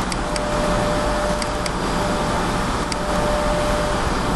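Steady whirring hum and hiss, like an air conditioner or fan, with a faint steady tone in it. A few light clicks of a computer mouse sound through it, in two quick pairs and then once more.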